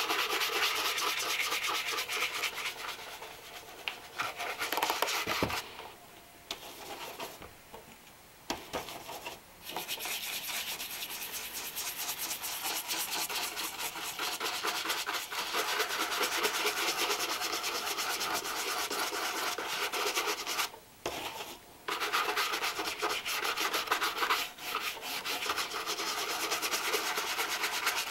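Rapid back-and-forth rubbing strokes over a leather shoe during polishing. The strokes stop for a few seconds about six seconds in and again briefly about twenty-one seconds in.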